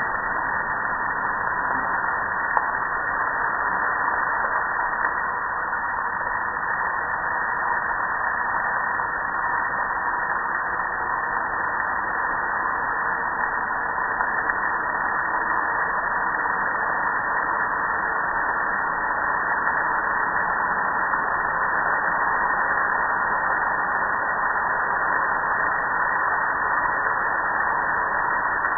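Steady rush of soapy water spraying and pouring over a metal gas grill, unchanging throughout.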